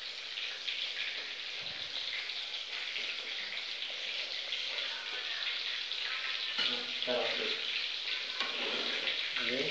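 A steady crackling hiss throughout, with faint voices briefly around seven seconds in and again near the end.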